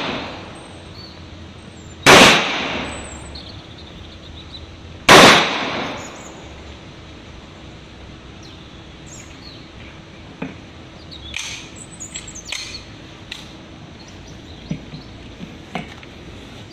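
Two semi-automatic pistol shots about three seconds apart, each a sharp loud crack that rings out for about a second. Later come a few light clicks and knocks.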